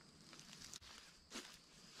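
Faint rustling and a couple of footsteps on dry leaf litter, two short crunches standing out about a second apart, over a steady faint high-pitched hum.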